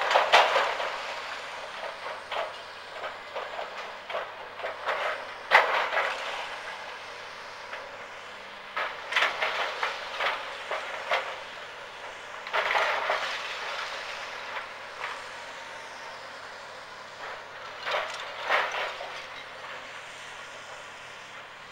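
Tracked demolition excavator tearing down a brick house with its grab: several bouts of crashing and crunching as masonry and rubble break and fall, over the faint low hum of the excavator's engine.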